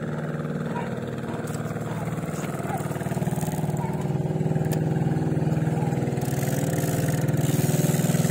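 A small boat engine running steadily, its hum slowly growing louder.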